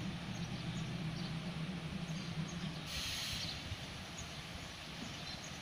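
Distant diesel locomotive running with a low steady hum that fades away after a short burst of air hiss about three seconds in. Faint bird chirps over it.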